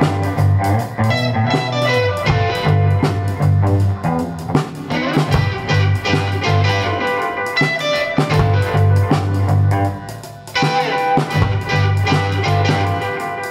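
Post-punk band recording with electric guitar, bass, drum kit and ARP synthesizer playing a steady groove. The music thins out briefly about ten seconds in, then comes back in full.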